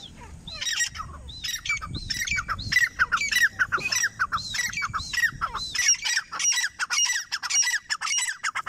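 Grey francolin calling: a fast series of repeated call notes, several a second, that stops abruptly near the end.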